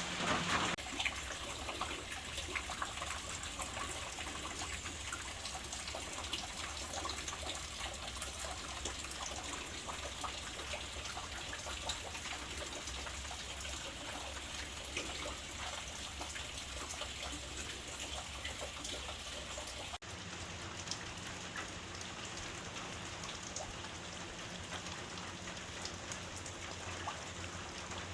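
Steady rain falling, with many small drop hits heard in it. About two-thirds of the way through, the sound changes abruptly and its hiss becomes duller.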